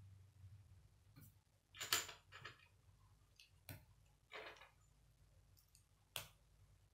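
Plastic K'nex rods and connectors being handled and snapped together: scattered clicks and short plastic rattles, the loudest about two seconds in.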